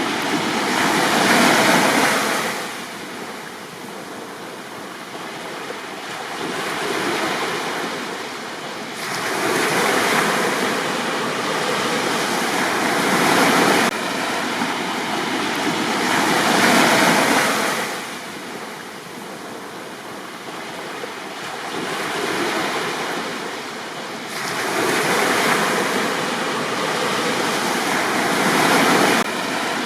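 Sea waves breaking on a beach and washing back, the surf swelling and falling away every few seconds.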